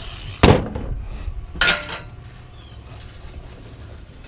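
Two metallic clanks a little over a second apart, the first the louder, from pieces of scrap metal being handled and set down.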